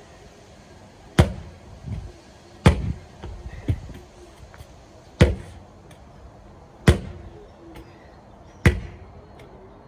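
Medicine ball slammed onto wooden decking again and again: five heavy thuds about one and a half to two seconds apart, a couple followed by a smaller knock as the ball bounces.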